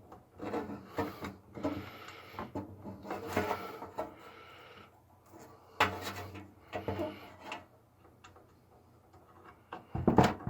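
Small plastic connector and cable being worked by hand inside a PC case: rubbing and scraping in the first few seconds, then scattered sharp clicks as a front-panel USB header plug is fitted onto the motherboard pins.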